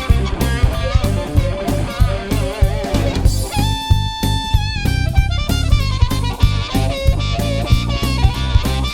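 Background music: guitar-led band with a drum kit keeping a steady beat, with a long held note about halfway through.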